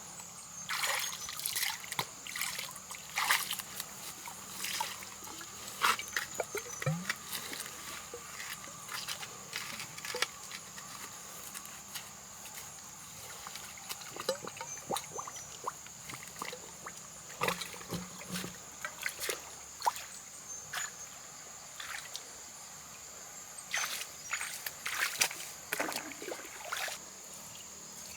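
Shallow muddy water sloshing and splashing, with irregular splashes and trickles as it is stirred and scooped.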